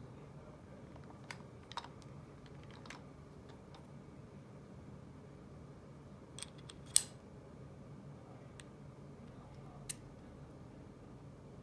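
Scattered small, sharp metallic clicks of screwdriver bits being handled in a Wera Active Insider screwdriver's handle and at its bit-holder sleeve, with one much sharper click about seven seconds in.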